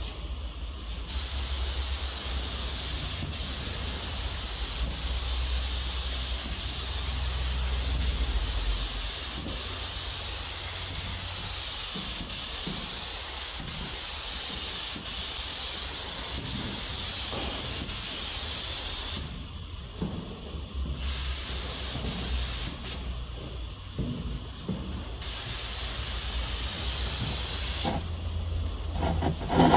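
Air-fed paint spray gun spraying paint with a steady hiss of atomising air. The trigger is let off three times in the last ten seconds, each gap lasting one to two seconds, before the hiss starts again.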